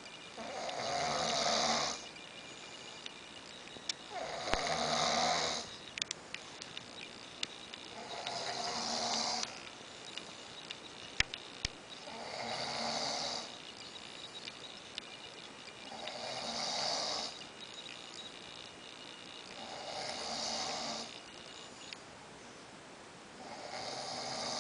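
A man snoring in his sleep: seven snores, one about every four seconds, each lasting a second or so.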